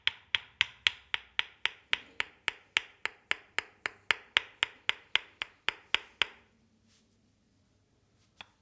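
Rhythmic percussive massage strikes on a leg, sharp and evenly spaced at about four a second, stopping about six seconds in; one faint click near the end.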